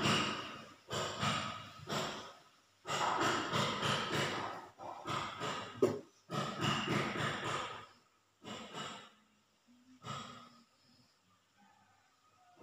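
A sleeper snoring deeply: rough, rattling snores on each breath, about a second long each, coming in an uneven run and growing fainter and sparser in the last few seconds.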